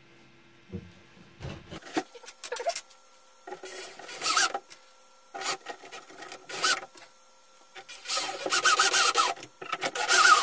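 A screw being turned by hand with a screwdriver through a plastic hinge into a 3D-printed screw anchor set in XPS foam board. It goes in a series of short grating, squeaky bursts, one per twist, which grow longer and louder near the end.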